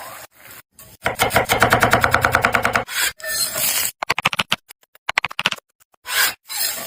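Rapid scraping strokes in a quick run, then scattered clicks and taps, cut into short snips: kitchen handling while a whole chicken is prepared.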